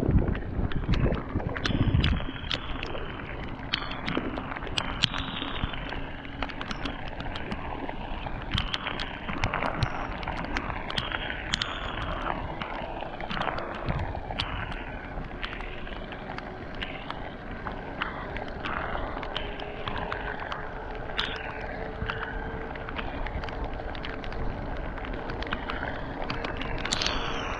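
Wind rushing over the microphone and a mountain bike's tyres hissing on a wet road during a fast descent, with gusty rumbles in the first couple of seconds. Small irregular clicks and taps run through it, and a faint steady hum comes in during the second half.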